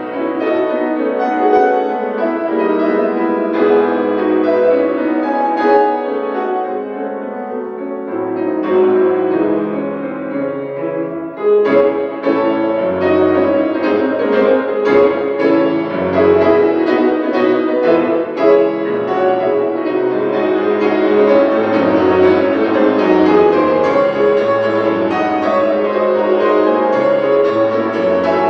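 Solo grand piano playing dense, fast classical passages. The music eases briefly about eleven seconds in, then resumes with loud, sharply struck chords.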